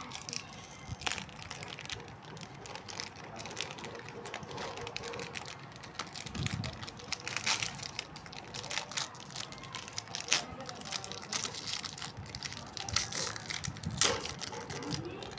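A plastic snack-cake wrapper crinkling and rustling as hands tear and peel it open, with irregular sharp crackles.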